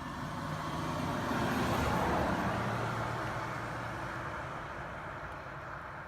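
A road vehicle passing by, its noise swelling to a peak about two seconds in and then fading away.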